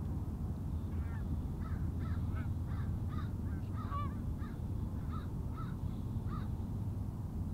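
Flock of Canada geese honking in flight: a run of short, repeated honks from about a second in until near the end, over a steady low rumble.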